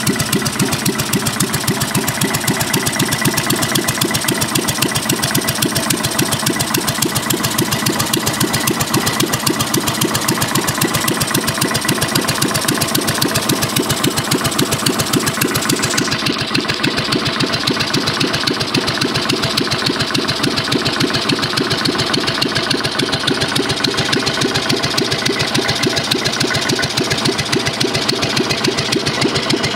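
1957 Cushman Husky single-cylinder four-stroke engine running steadily with an even firing beat.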